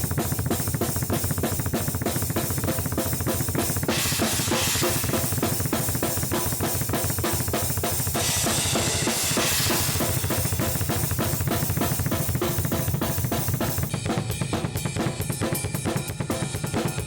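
Drum kit played in a fast, steady beat during a sound check, with bass drum, snare and cymbals. The cymbals wash louder from about four seconds in to about ten seconds in.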